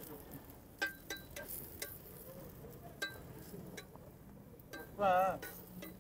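A few sharp metallic clinks from a steel spatula striking a large iron tawa griddle, over a faint low hiss. Near the end a person's voice rises briefly with a wavering pitch.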